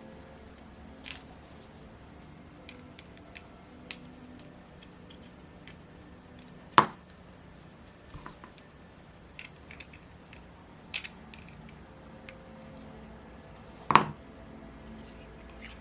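Scattered light metallic clicks and taps of small parts and hand tools while the rocker arms are fitted to a Saito FA-82 four-stroke model engine, with two sharper clinks about seven and fourteen seconds in.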